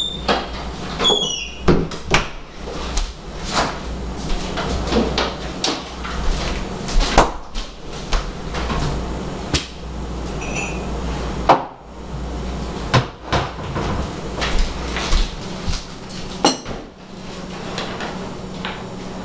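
Kitchen cupboard doors and dishes knocking and clattering as breakfast things are got out: a string of separate clicks and knocks, with a short falling squeak about a second in, over a steady low hum.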